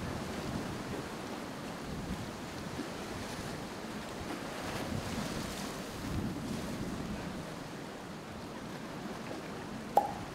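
Surf washing onto the beach with wind, a steady rushing that swells and eases. A single sharp click near the end.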